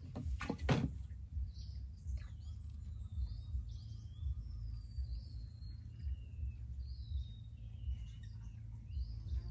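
Small birds singing in the surrounding vegetation, a string of short whistled notes that slide down in pitch, over a low steady rumble. About half a second in come a few sharp knocks, the loudest sounds here.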